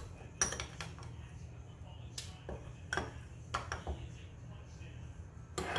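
A metal spoon clinking and scraping against a small glass bowl while scooping out breadcrumb topping: about seven sharp, irregularly spaced clinks, the loudest about half a second in and right at the end.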